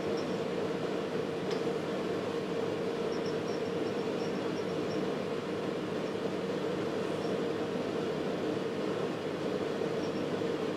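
Cooling fan of an HP 3562A dynamic signal analyzer running steadily as the instrument goes through its power-up self-tests: an even hum with a held mid-pitched tone.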